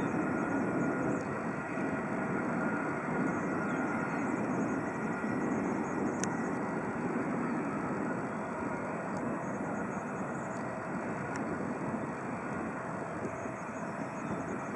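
Airbus A319 jet engines at low taxi power: a steady, even hiss and drone with a faint high whine. A single short tick sounds about six seconds in.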